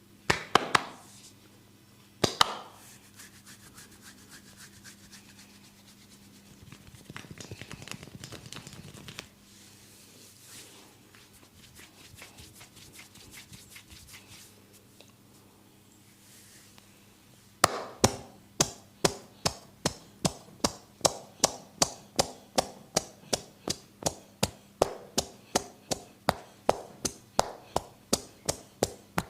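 Barber's hands massaging a head. A couple of sharp snaps come near the start, then soft rubbing of hair and scalp with a short crackly stretch. From a little past halfway comes a steady run of sharp hand taps on the head, about three a second.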